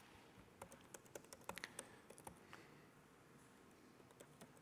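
Faint keystrokes on a computer keyboard, a quick run of taps during the first couple of seconds: a search term being typed.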